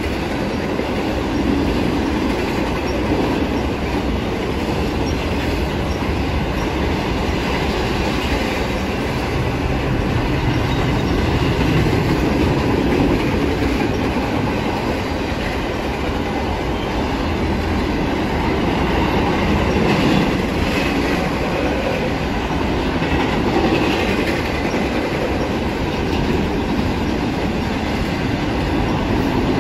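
Double-stack container train's cars rolling past steadily, steel wheels running on the rails.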